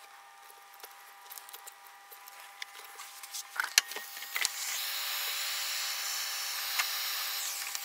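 Small clicks and rustles of wires being handled, then about halfway through a heat gun starts blowing: a steady hiss of hot air that stops just before the end.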